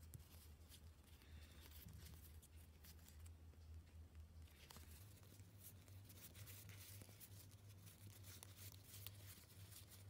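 Faint scratching and rustling of stiff hexagonal playing cards being handled and slid against one another, with scattered light ticks, over a low steady hum.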